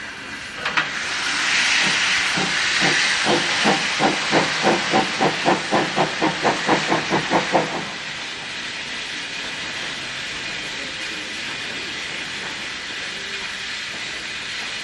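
Steam locomotive starting away: a burst of hissing steam about a second in, then about twenty exhaust chuffs that quicken steadily before stopping abruptly about eight seconds in, after which a steady steam hiss remains.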